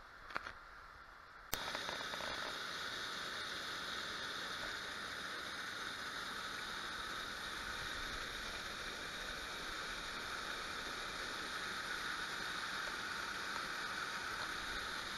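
Close-up waterfall: water pouring over rock ledges into a pool, a steady rushing hiss that starts suddenly about a second and a half in. Before it, fainter water with a couple of sharp clicks.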